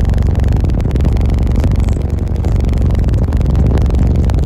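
A 63,000-watt car audio system with fourteen subwoofers playing music at extreme volume, heard from inside the vehicle: very loud, deep bass fills the sound and swamps everything else.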